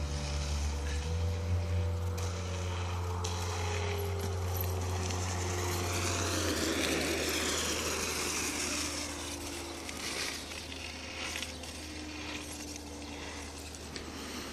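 Mountainboard wheels rolling over asphalt, getting louder as the board passes close by a little past halfway and then fading, over a steady low hum.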